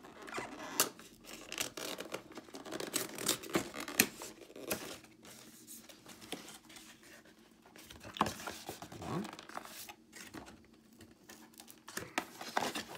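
Hands picking, scratching and tearing at glued packaging on a new GoPro Hero6 Black box, an irregular run of clicks, scrapes and tearing as the seal resists being pulled off.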